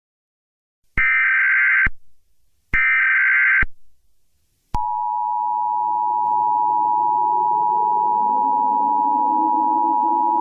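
Emergency Alert System tones: two bursts of about a second each of screeching, warbling SAME data-header tones, then the steady two-tone EAS attention signal, 853 and 960 Hz sounding together. A fainter, lower sound slowly rises in pitch beneath the attention tone.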